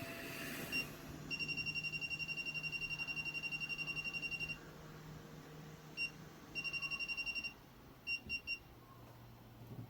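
Electronic key beeps from a soldering rework station's control panel as its buttons are pressed and held to set the temperature: single beeps, a fast run of about ten beeps a second lasting some three seconds, a shorter run, then three quick beeps, over a faint steady hum.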